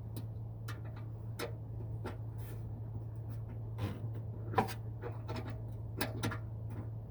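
Irregular light clicks and taps of hand tools and bolt hardware as a horn-mount bracket is bolted up under a vehicle's fender, with one sharper knock about halfway through, over a steady low hum.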